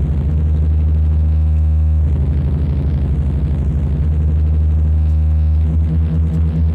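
Death industrial noise music: a loud, low electronic drone pulsing rapidly. It breaks off briefly about two seconds in, and near the end it changes to a slower throb of about four pulses a second.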